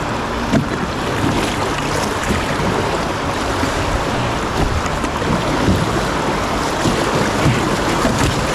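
Fast river water rushing past and against a plywood canoe's hull as it runs into rapids, with wind buffeting the microphone and a light knock about half a second in.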